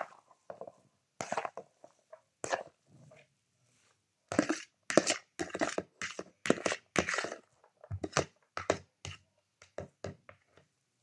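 Metal spoon scraping and knocking against a plastic bowl as fried rice noodles are pushed out into another bowl: a few scattered scrapes, a quick run of rapid scrapes in the middle, then sparser taps.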